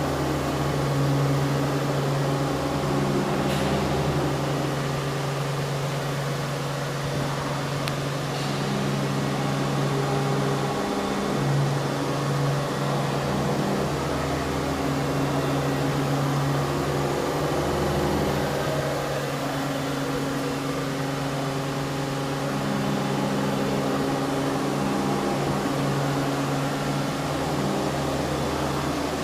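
CNC milling machine running while machining a mould: a steady low mechanical hum whose tones shift and change every few seconds as the machine works.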